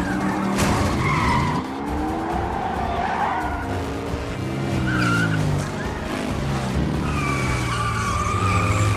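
Racing vehicle engines revving up and down repeatedly, with tyres squealing as they slide, in a film sound mix.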